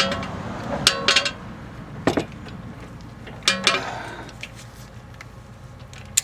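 Steel hand tools clinking and clanking: a socket and torque wrench handled and fitted onto the tie rod end's 19 mm nut, in a few separate ringing metal knocks.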